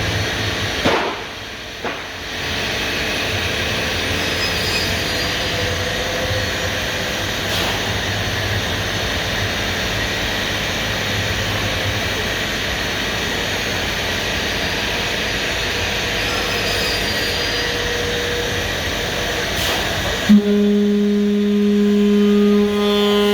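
CNC router running: a steady rushing noise that dips briefly with a couple of clicks about a second in, then changes abruptly near the end to a steady pitched whine with overtones.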